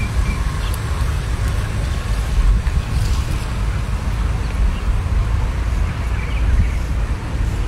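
Wind buffeting the phone's microphone, a steady low rumble.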